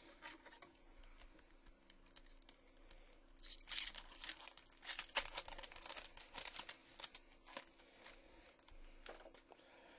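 A shiny plastic trading-card pack wrapper being torn open and crinkled by hand, a run of crackles that is busiest and loudest from about three and a half to seven seconds in.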